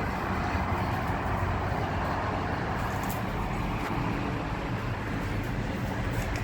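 Steady road noise of a car driving: a low engine and road rumble with an even tyre hiss.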